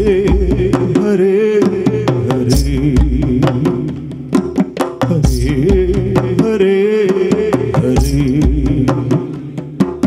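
Male voice singing a Malayalam folk song over live drums: a quick, steady beat of hand-drum strokes with a deep bass thump about every two and a half seconds. The singing thins out briefly near the middle, then comes back.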